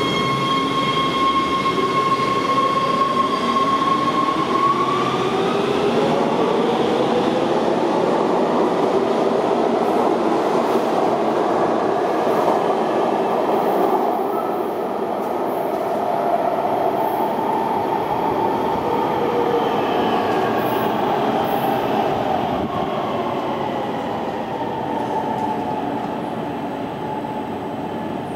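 1998 Breda A650 subway train pulling out of the station. A steady high whine changes about four seconds in to several whines rising in pitch as it gathers speed, over wheel and rail noise, then gradually fades as the train runs off into the tunnel.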